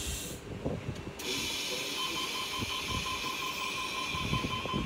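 A Tangara electric train standing at the platform gives a short burst of air hiss. About a second later a steady hiss of air starts, and with it a rapid beeping, about four beeps a second: the door-closing warning as the doors shut. Wind buffets the microphone underneath.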